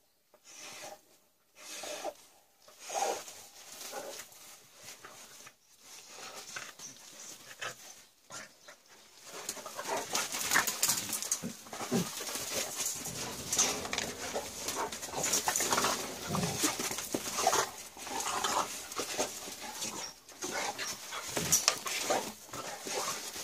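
A Dogo Argentino and a Patterdale terrier play-fighting: irregular scuffling and dog sounds, sparse at first and busier and louder from about ten seconds in.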